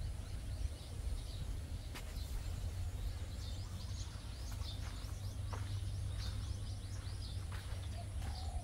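Many small birds chirping in quick short calls, over a steady low rumble.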